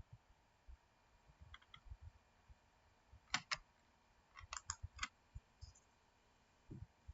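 Light, sharp clicks and taps in small groups, like tapping or typing: a faint pair about a second and a half in, two sharper clicks at about three and a half seconds, then a quick run of four or five clicks a second later.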